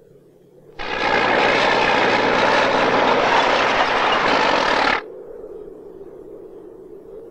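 Loud engine noise of a heavy machine working refuse on a rubbish tip, cutting in abruptly about a second in and stopping sharply about four seconds later. A faint steady hum lies before and after it.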